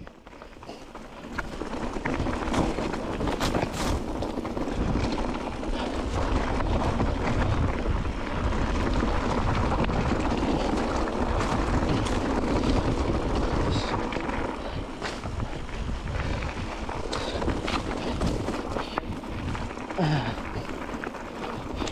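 Wind buffeting the microphone: a steady rushing rumble that builds about a second and a half in.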